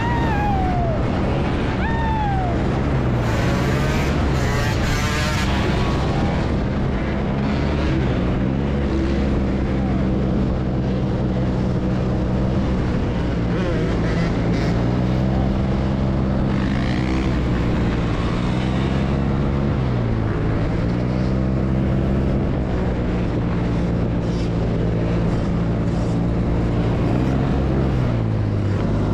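Motorbike engines running steadily as the bikes ride, with a continuous rush of noise. The engine pitch drops and picks up again a couple of times.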